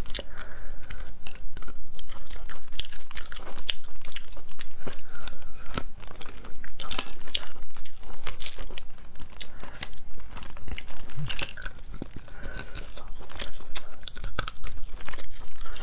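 Close-up crunching and chewing of cooked mantis shrimp, the hard shell cracking in a dense run of sharp crackles between bites, with a couple of brief lulls.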